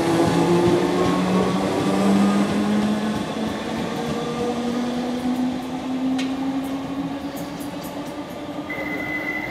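British Rail Class 313 electric multiple unit pulling away, its motors whining with a pitch that rises slowly as it gathers speed, the sound fading as it draws off. A steady high tone starts near the end.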